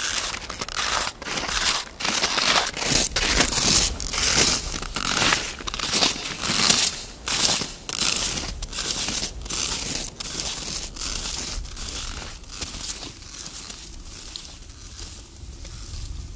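Boots crunching in snow at a steady walking pace, about two steps a second, fading out about three-quarters of the way through.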